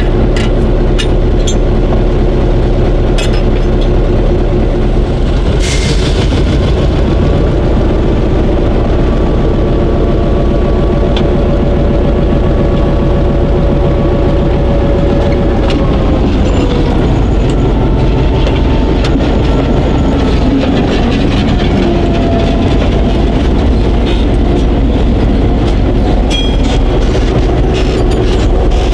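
A freight train on the shortline's track: a diesel locomotive's engine runs with a steady rumble while wheels click over the rail. About halfway through, the engine's tones drop in pitch.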